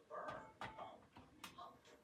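Near silence: room tone with a few faint, short sounds and a small click.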